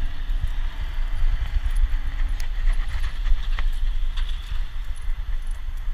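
Steady low rumble and irregular bumping from a GoPro strapped to a moving dog's back, with a couple of sharp clicks about two and a half and three and a half seconds in.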